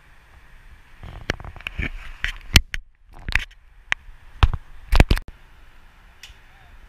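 Lightsaber blades striking each other in a quick series of sharp cracks, some coming in fast pairs, from about a second in until just past the middle.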